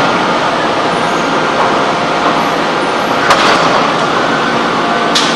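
Loud, steady machinery noise of a hydraulic forging press and forging manipulator at work, with a steady hum under it and a sharp metallic clank about three seconds in and another near the end.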